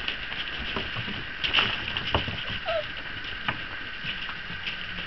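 Working cocker spaniel puppies' paws scrabbling and pattering on gravel and wooden steps: scattered light taps and scuffs as they play, with one short high squeak near the middle.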